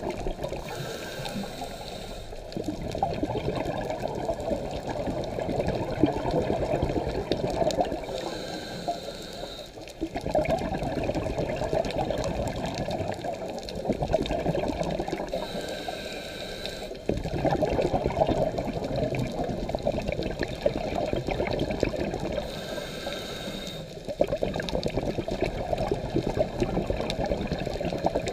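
Scuba diver breathing through a regulator: a short hiss on each inhale, then a long burst of bubbling exhaust, repeating about every seven seconds, four breaths in all.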